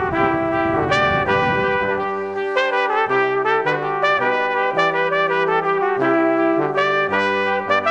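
Background music led by brass, a trumpet-like melody of held notes over a stepping bass line.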